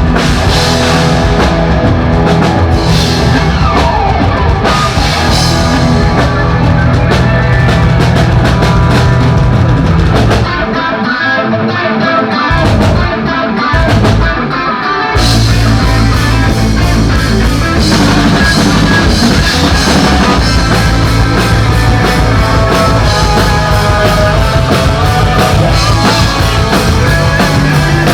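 A rock band with drums, bass and electric guitar plays loud at a sound check. From about ten to fifteen seconds in, the drums and bass drop out and the guitar carries on alone, then the full band comes back in.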